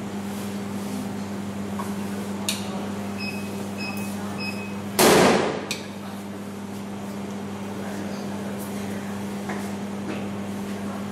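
Latex balloon popping: the black balloon inside a white balloon bursts sharply under a picosecond laser pulse, while the outer balloon stays intact. Before the pop there is a click and then three short electronic beeps, over a steady low hum.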